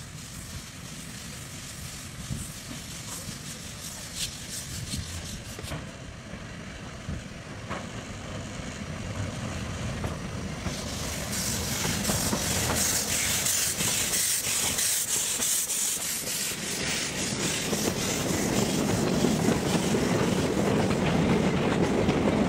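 Narrow-gauge Franco-Belge 0-4-0 tank steam locomotive of 1945 approaching and passing close by, getting louder. Its steam hiss comes in suddenly about eleven seconds in. Near the end the wagons rumble and clack past on the rails.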